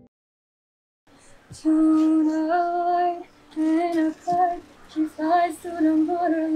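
A woman singing solo without accompaniment, holding long notes in short phrases. It starts after about a second of silence.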